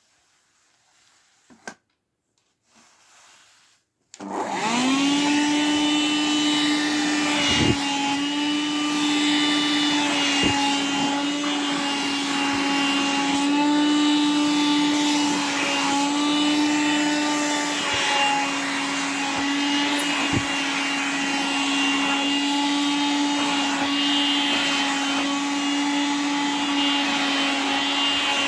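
A vacuum cleaner switches on about four seconds in, its motor spinning up quickly. It then runs steadily while sucking at fabric clothing, the motor pitch dipping and recovering several times as the nozzle is partly blocked, with a few small clicks.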